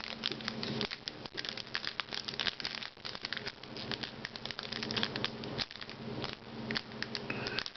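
Crinkling and crackling of a foil Pokémon booster pack wrapper being handled and opened, a dense run of small irregular crackles.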